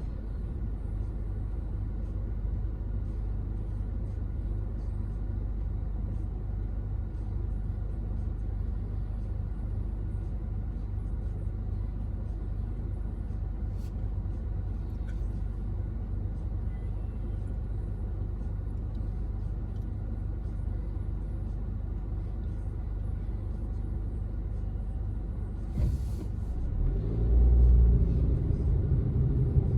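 Steady low rumble of a car's engine and running gear, heard from inside the car. About 26 seconds in there is a click, then the engine note rises and grows louder as it revs up.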